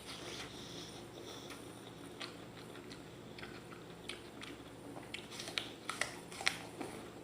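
Crisp raw apple being bitten and chewed close to the microphone: scattered small crunches, with a run of louder, sharper crunches near the end.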